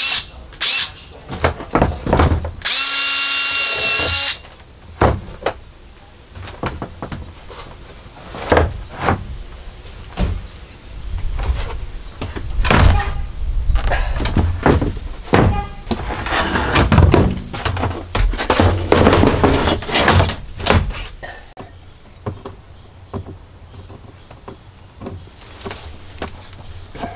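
Cordless drill boring a small pilot hole down through the van floor: a few short trigger bursts, then about a second and a half of steady running with a whine. After that come irregular knocks and thumps of handling as the plastic shower pan is shifted and lifted, then quieter near the end.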